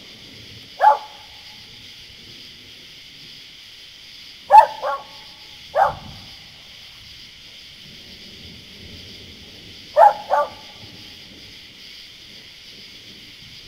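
A dog barking in short bouts: one bark about a second in, three more between four and a half and six seconds, and two close together near ten seconds. A steady high hiss runs underneath.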